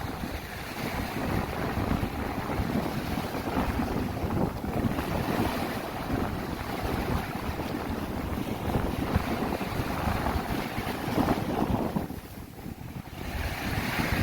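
Wind gusting against the microphone with a deep rumble, over the wash of sea waves; the wind drops off briefly near the end, then picks up again.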